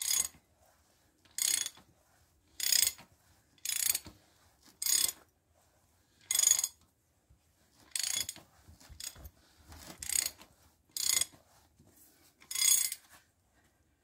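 Ratchet wrench clicking in short bursts, roughly once a second, on its return strokes. It is turning the screw of a bearing press to draw a new wheel bearing into the hub.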